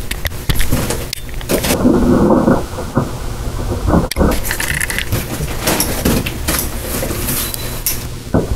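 A cardboard box being opened: a box cutter slitting the packing tape along the seam, with irregular scraping, clicks and rustling of the cardboard.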